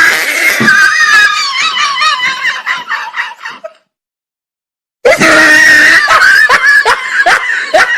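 Shrill, high-pitched screaming in two loud stretches split by about a second of dead silence; the second ends in a run of short rising squeals.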